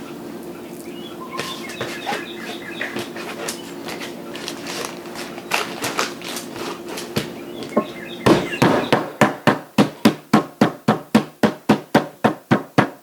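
A meat mallet pounding slices of chicken breast flat under parchment paper on a cutting board: a fast, even run of sharp knocks, about three a second, starting about eight seconds in. Before the knocks there is a steady low hum with a few light clicks.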